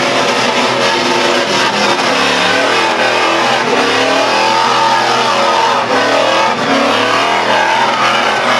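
Holden VR Commodore doing a burnout: the engine is held at high revs, rising and falling, while the rear tyres spin against the track.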